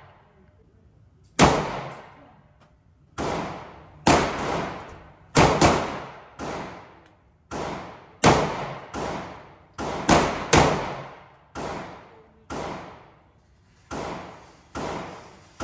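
Gunshots in an indoor shooting range, about sixteen shots at an uneven pace, each one ringing off the concrete lane walls before the next.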